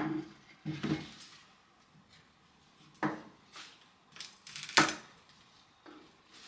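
Kitchen knife cutting turnip greens off the roots on a wooden cutting board: a few scattered knocks of the blade against the board, the sharpest just before five seconds in. Near the start come duller bumps as the turnips are set down on the board.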